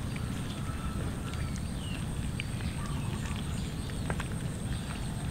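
Cats eating cooked rice from a metal tray: many small clicks and chewing sounds over a steady low rumble. A few faint, short, high chirps come through.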